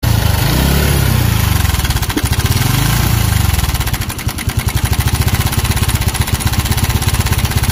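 TVS Victor BS4 motorcycle's single-cylinder four-stroke engine running with a fast, even, rhythmic clatter. The mechanic puts the noise down to a worn timing chain or a failed cam-chain tensioner.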